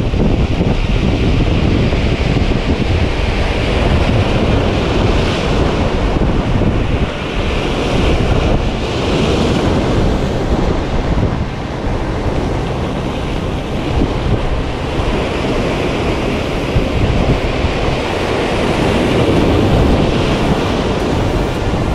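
Sea waves washing and breaking against a concrete jetty in several surges, with wind buffeting the microphone.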